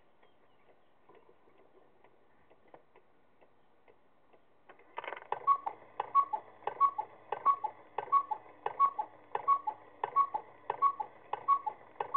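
1950s G.M. Angem cuckoo clock ticking faintly, then, about five seconds in, the cuckoo starts calling the hour: eleven two-note cuckoo calls, one about every two-thirds of a second. Each call comes with a sharp strike from the jingle bell fitted in place of the missing gong coil.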